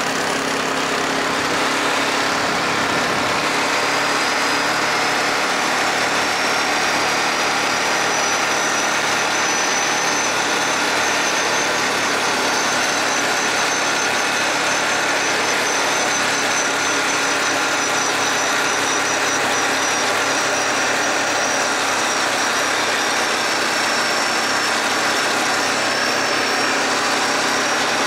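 Yamaha Grizzly 450 ATV's single-cylinder four-stroke engine running steadily, with a faint high-pitched whine that slowly rises in pitch a few seconds in.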